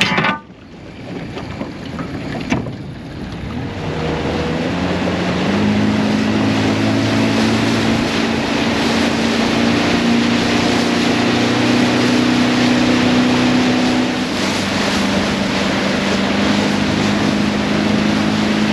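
Boat motor speeding up a few seconds in, its pitch rising, then running steadily at cruising speed, with wind noise and rushing water.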